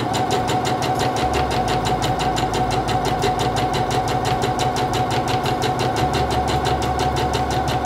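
Singer Confidence 7640 sewing machine stitching a straight seam at steady speed: a constant motor whine under an even, rapid ticking of the needle and feed.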